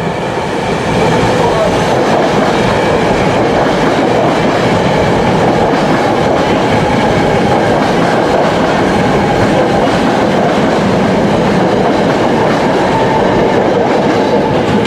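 Express commuter train passing through the station at speed without stopping: a loud, steady rush of cars and wheels on the rails that builds over the first second and then holds.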